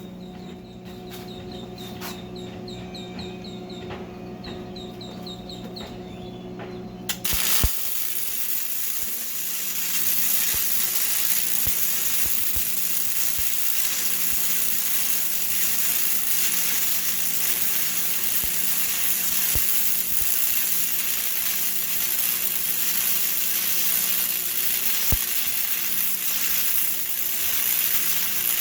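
A low steady electrical hum for about seven seconds, then an arc strikes and a long, even crackling sizzle of stick (arc) welding on steel plate follows.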